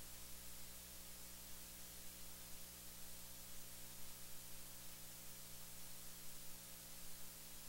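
Faint steady hiss with a low electrical hum made of several steady tones: the recording's noise floor, with no speech audible.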